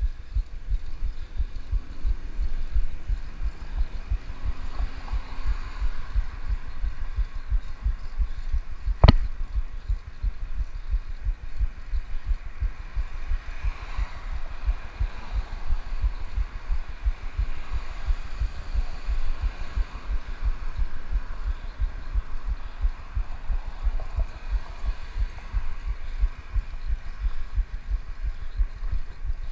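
Low, rapid thumping rumble of wind buffeting the microphone of a handlebar-mounted action camera on a moving bicycle, with one sharp knock about nine seconds in.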